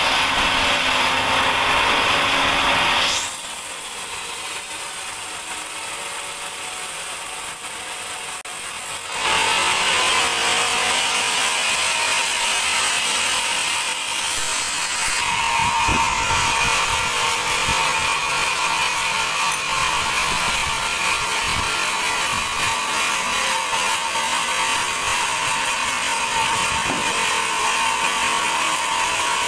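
Sawmill band saw running and cutting through a teak log: a steady mechanical whine with a rattle. About three seconds in it turns suddenly quieter and thinner for about six seconds, then comes back at full strength.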